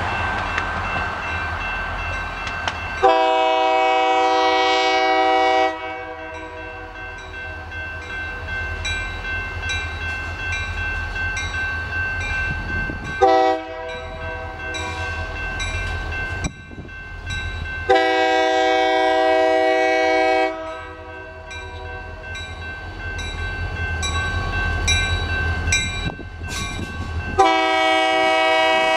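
EMD GP40 diesel locomotive sounding its air horn for a grade crossing: a long blast, a short one, another long one, and a fourth long blast starting near the end, over the low rumble of the diesel engine. A crossing bell rings steadily behind it at about two strikes a second.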